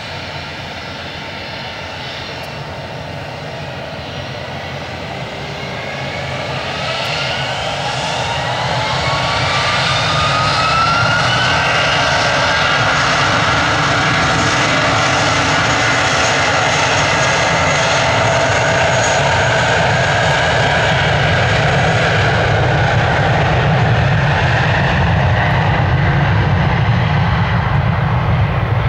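Airbus A320's twin IAE V2500 turbofan engines spooling up to takeoff thrust on the takeoff roll. A whine rises in pitch over several seconds while the engine noise swells, then holds as a loud, steady jet engine sound with a deep rumble as the airliner accelerates down the runway.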